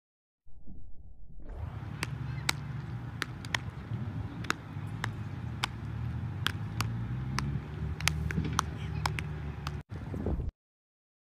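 Baseballs popping into leather gloves again and again at irregular moments as several players play catch, over wind rumble on the microphone. The sound cuts off suddenly shortly before the end.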